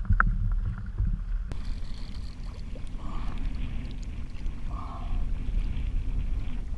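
Water sloshing and lapping against a kayak hull, with a steady low rumble of wind on the microphone.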